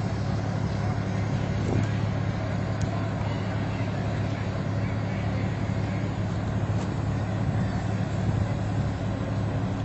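Motor vehicle engine running steadily with a low, even hum and road noise.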